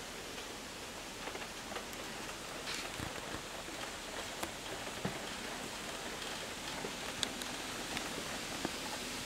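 Wind through a bamboo grove: a steady rustling of bamboo leaves, with scattered sharp clicks and creaks as the trunks rub against each other.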